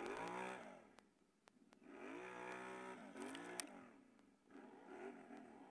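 Can-Am Renegade ATV engine revving up and down in several short throttle blips while churning through crusty snow, with a sharp click about three and a half seconds in.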